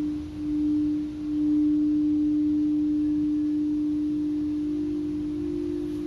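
Singing bowl sounding one sustained low tone that swells a few times at first, then holds steady; a second, slightly higher tone joins about five seconds in.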